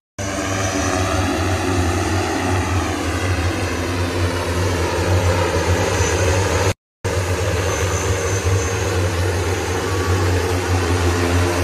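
Eighteen battery-electric propellers of a LIFT Hexa single-seat multicopter running in flight: a steady, loud buzzing hum with many overlapping tones that drift up and down as the rotor speeds change. The sound drops out briefly at the very start and again just before seven seconds in.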